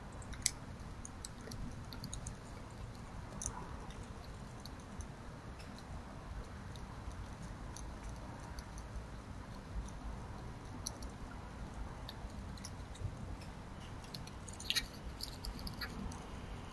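Fox eating from a bowl: irregular small crunching and clicking as it chews, with a brief cluster of louder crunches near the end, over a steady low background noise.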